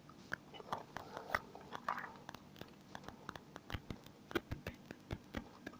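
Faint, irregular small clicks and taps from handling earbuds and a phone while the AirPods are being connected.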